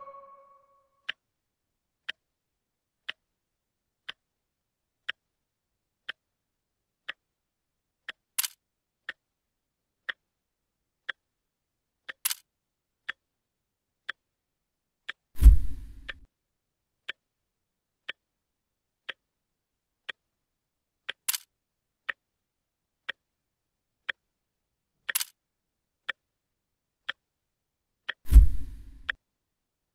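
Clock ticking steadily, about one tick a second, with a few louder ticks. Two heavy thumps, one about halfway through and one near the end.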